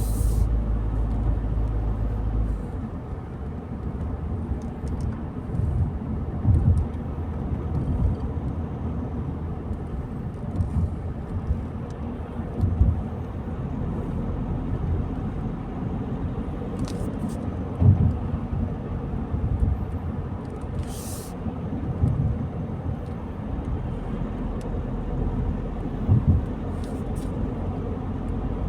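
Car driving on a country road: a steady low rumble of engine and tyres, heavier for the first couple of seconds, with short low thumps every few seconds and a few brief high-pitched ticks.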